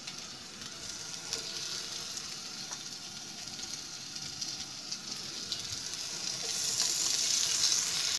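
Raw meat patties (köfte) sizzling in a well-heated non-stick frying pan with a little oil, searing on contact. The sizzle grows louder near the end as more patties are laid into the pan.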